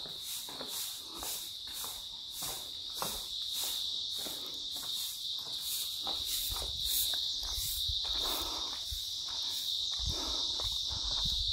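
High-pitched insect chirring, steady with a fast pulsing, over a person's footsteps.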